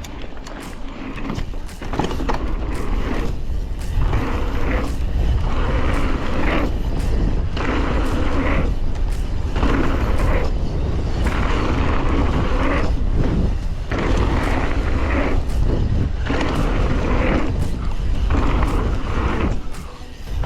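Heavy low rumble of wind buffeting a camera microphone on a mountain bike run, with surges of sound that come and go every second or two and a few sharp knocks, mixed with music.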